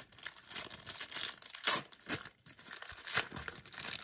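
Baseball card pack wrapper being torn open and crinkled by hand, in a run of short rustling tears with the loudest about one and three seconds in.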